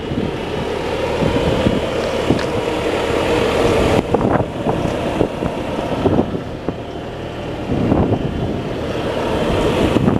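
Bobcat T650 compact track loader's diesel engine running, with irregular knocks and clanks from the machine and wind noise on the microphone.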